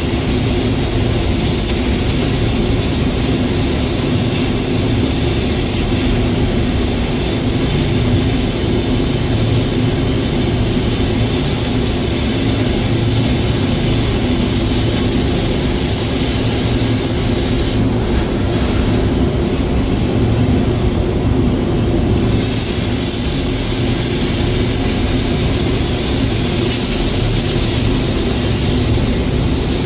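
Steady engine drone with a constant hiss on top; the hiss thins for a few seconds about two-thirds of the way through.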